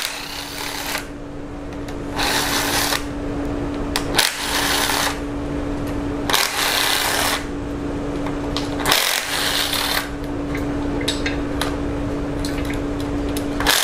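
Cordless power driver with a 6 mm hex bit spinning out the bolts of a 2.4 MultiAir engine's valve-actuator unit: a steady motor whine, broken by a few short pauses, with several harsher, louder stretches of about a second each.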